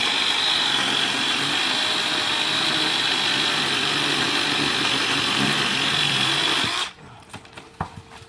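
Makita 18-volt twin-battery cordless chainsaw running steadily with an electric whine, very quiet for a chainsaw. It cuts off suddenly about seven seconds in, leaving a few faint clicks.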